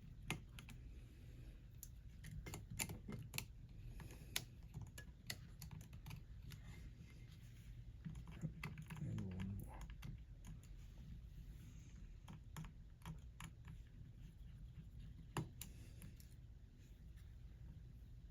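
Faint, irregular light clicks and taps of a precision tri-point screwdriver working the tiny screws inside an iPhone 13 Pro Max.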